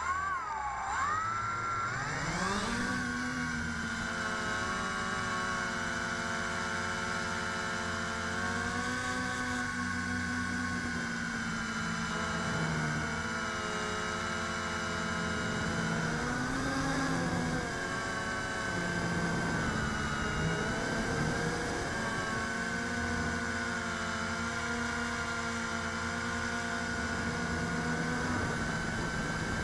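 RC Logger Xtreme quadcopter's electric motors and 138 mm propellers whining in flight, heard from its onboard camera, three of the propellers cracked and one motor out of alignment. Several pitches climb together over the first couple of seconds as it spools up and lifts off, then rise and fall with the throttle.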